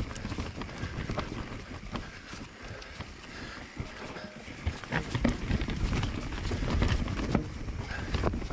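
Mountain bike rattling over a rough, rooty trail: a run of clicks and knocks from the tyres and frame hitting roots and stones, over a low rumble. It gets louder about halfway through.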